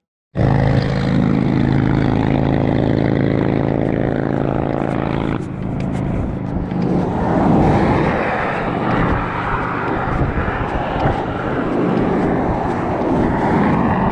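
A motor vehicle engine running at a steady pitch for about five seconds, then a louder, uneven rushing noise like passing traffic.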